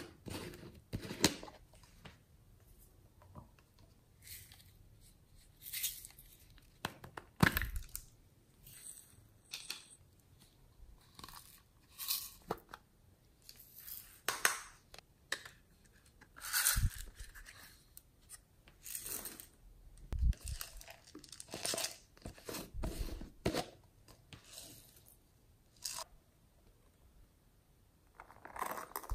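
Hands handling plastic containers and a silicone zip pouch: separate short clicks, rubs and rustles every second or two, with quiet in between.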